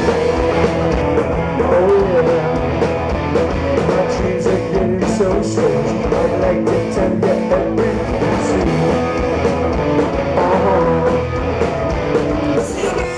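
Live rock band playing loud: electric guitars with singing over a full band. The music drops in level near the end.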